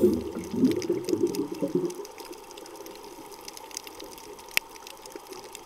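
Underwater bubbling and churning water noise that dies away about two seconds in, leaving faint scattered crackling clicks with one sharper click near the end.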